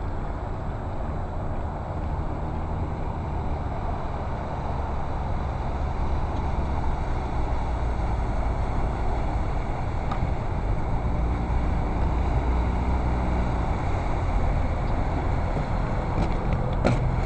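15 hp Mercury outboard motor running at speed on a small boat's warm-up run, a steady drone that grows gradually louder as the boat comes closer.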